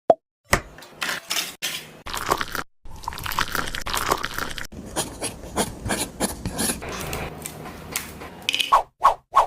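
Wet mortar being scraped and spread with a small trowel, with irregular clicks and taps. Near the end a run of short pitched pop sound effects begins.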